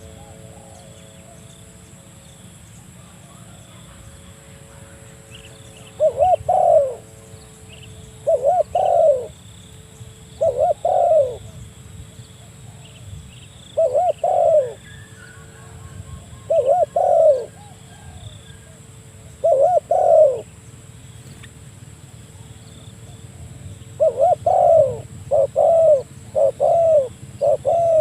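Spotted dove (tekukur) cooing its repeated territorial call to a rival. Short phrases come every two to three seconds, then closer together near the end.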